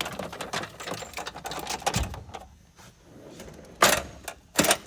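Steel toolbox drawers being worked, with metal tools clattering and rattling, then two loud metal bangs near the end as a drawer is shut and another opened.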